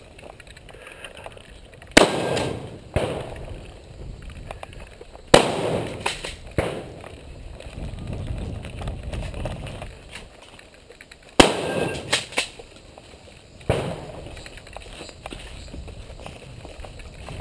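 Shotgun fired about eight times at uneven intervals, in two spaced pairs and then a quick cluster. Each shot is a sharp crack followed by a short echo.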